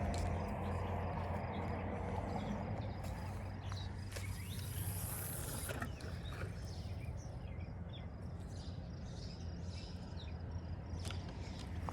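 Fishing reel being worked, its gears whirring and clicking as the line is handled, over a steady low hum.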